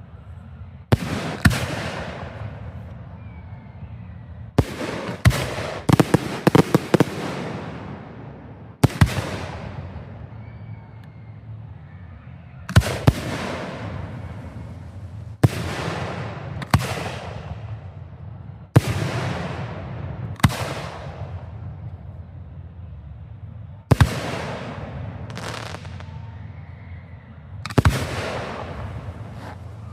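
Aerial fireworks display: shells exploding every few seconds, singly or in quick clusters of two or three, each blast followed by a long echoing rumble that fades away.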